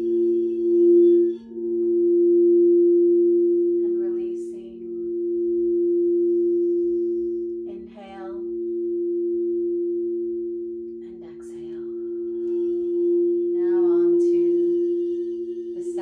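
Frosted quartz crystal singing bowl played with a wand, ringing in a long sustained tone of several low pitches that slowly swells and fades.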